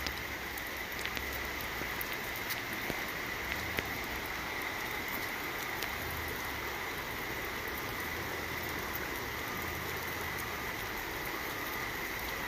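Steady hiss of water on a flooded street, with scattered small ticks of drops through it.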